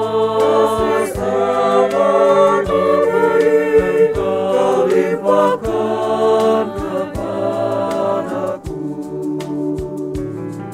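Male voices singing an Indonesian worship song in harmony over an instrumental accompaniment with regular struck notes.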